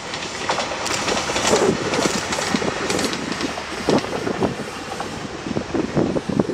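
Train passing along the track, its wheels clattering over the rail joints in a quick, uneven run of clicks.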